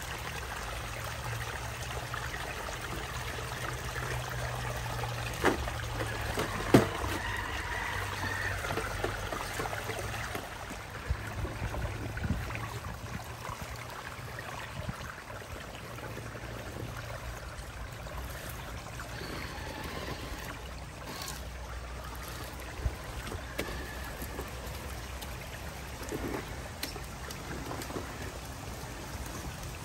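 Small stream trickling and splashing over rocks in a little cascade, steady throughout, with a couple of sharp knocks several seconds in.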